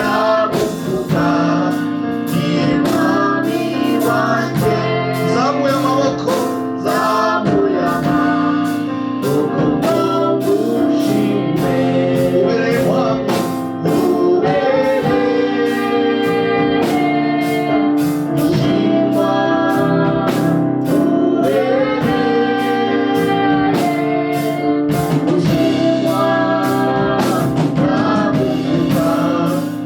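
Live gospel praise and worship music: voices singing over a band's held chords and a steady drum beat.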